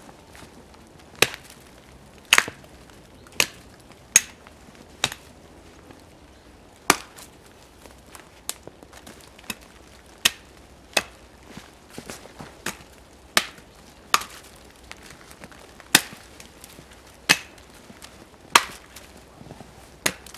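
Small axe chopping into the trunk of a standing tree: repeated sharp strokes of steel biting wood, about one a second, with a short break about five seconds in.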